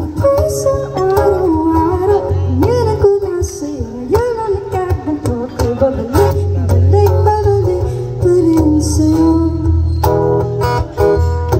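A woman singing a slow ballad into a microphone, accompanying herself on a strummed acoustic guitar.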